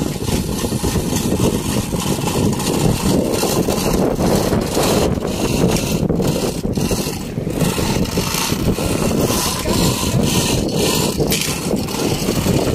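Fishing boat's engine running with a steady rumble, with water splashing against the hull where a hooked shark thrashes alongside.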